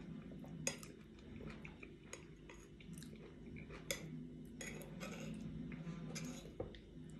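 Metal spoon clinking and scraping against a ceramic bowl while scooping fruit salad in yogurt. The clinks are faint and scattered, with two sharper ones about a second in and near four seconds in.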